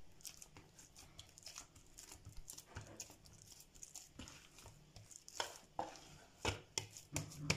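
Naan dough being kneaded by hand in a steel bowl: soft, irregular pressing and slapping sounds, with a few sharper knocks in the second half.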